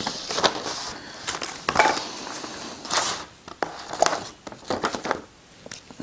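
Sheets of paper rustling and rubbing under a hand as they are shifted and pressed flat on a desk, in irregular bursts with small crinkles and taps.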